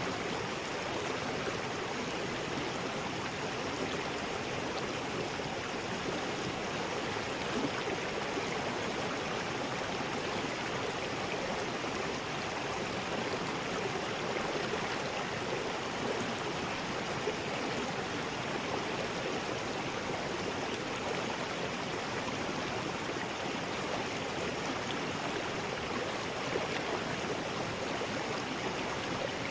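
River rapids: a steady, even rush of water over rocks.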